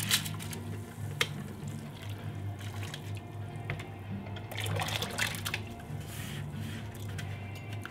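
Wet rice sliding from a ceramic bowl into a pot of water, then water pouring and dripping in from the bowl's lip. A sharp click comes about a second in, and a louder splashy pour around five seconds in.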